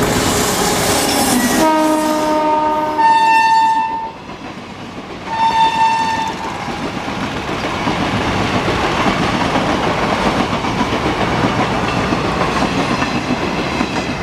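WAP-7 electric locomotive hauling a passenger train sounds its horn twice, a longer blast then a short one, as it passes close by. The coaches then run past, rumbling with wheels clattering over the rail joints.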